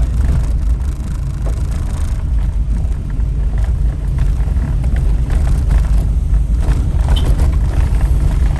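Steady low rumble of a car driving along a rough road, engine and tyre noise with a few faint knocks.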